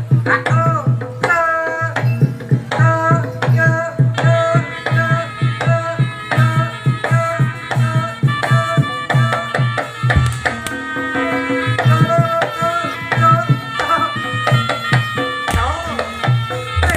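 Jaranan ensemble music: a fast, steady beat of hand-played kendang drum strokes under a wavering melodic line that slides between notes.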